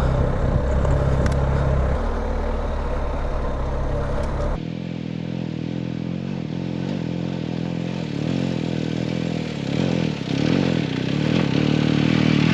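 BMW R1250GS boxer-twin engine running as the motorcycle rides a rough off-road trail, with clatter and scraping from the terrain. The sound changes abruptly about four and a half seconds in, and the engine gets louder near the end.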